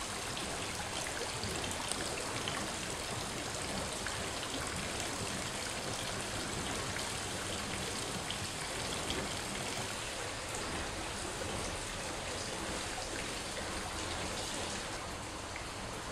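Hot-spring water bubbling up from the bottom of a pool, with gas bubbles fizzing and popping steadily at the surface among many small crackling ticks.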